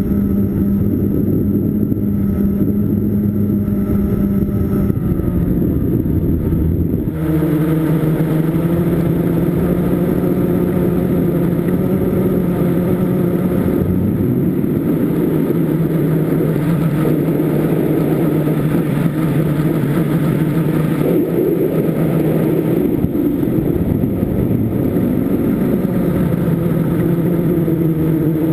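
Blade 350 QX quadcopter's four brushless motors and propellers humming in flight, a steady pitched drone that shifts pitch a few times as the throttle changes.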